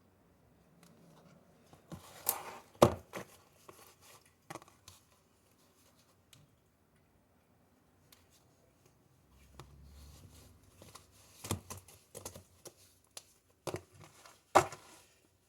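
Slime being stretched and squeezed in the hands, giving scattered sticky clicks and crackles in two clusters, one a couple of seconds in and one through the last few seconds.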